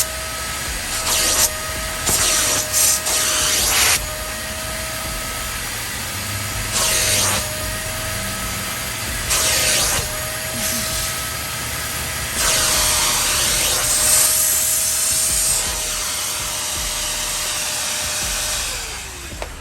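Hart 3-in-1 wet/dry vacuum running as a carpet extractor: a steady motor whine, with repeated hissing surges as the nozzle sprays and sucks water from a floor mat. Near the end the whine falls in pitch as the motor spins down.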